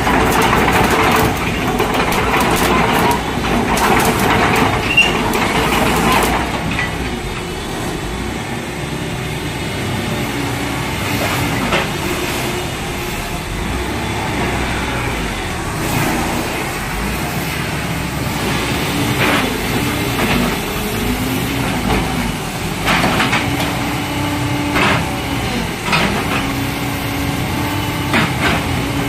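Diesel engine of a crawler excavator running, with a pitch that rises and falls now and then, and scattered short clicks. Louder in the first six seconds.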